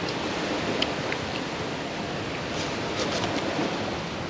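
Steady rushing outdoor noise, with a few faint short ticks.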